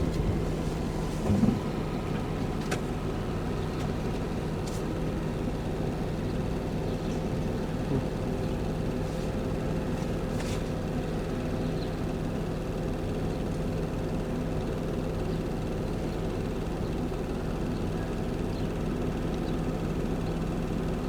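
A vehicle engine idling with a steady hum, with a few faint clicks and a brief louder low sound about a second and a half in.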